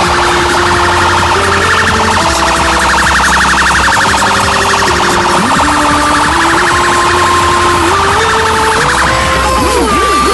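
Loud electronic music played through a car sound system, built on siren-like wailing effects. A fast warbling alarm-like tone runs through most of it over a stepped synth melody, and rising-and-falling siren wails return near the end.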